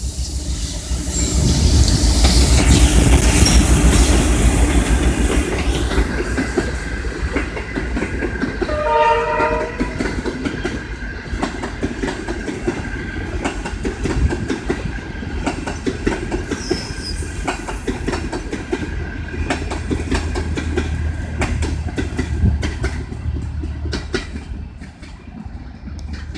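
CNR CKD8H diesel-electric locomotive and its passenger coaches passing, the engine's low rumble loudest in the first few seconds, then the coaches' wheels clicking over the rail joints, fading as the last coach moves away near the end. A brief horn blast sounds about nine seconds in.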